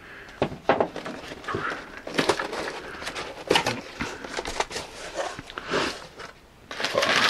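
Cardboard shipping box being opened by hand: scrapes and knocks of the flaps and lid, then brown kraft packing paper crinkling, loudest near the end.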